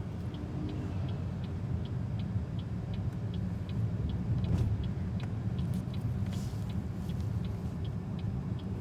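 Cabin of a BYD Seagull electric car on the move: steady low road and tyre rumble, with the turn-signal indicator ticking evenly, about two to three ticks a second, ahead of a left turn.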